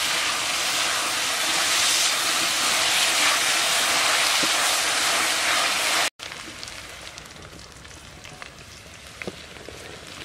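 Sliced onions and green chilies sizzling as they fry in hot oil in a steel wok. About six seconds in, the loud sizzle cuts off abruptly and a much quieter hiss with scattered small crackles follows.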